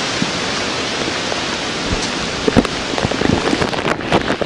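Hurricane rain pouring in a steady hiss, with scattered sharp taps of drops striking the camera close by.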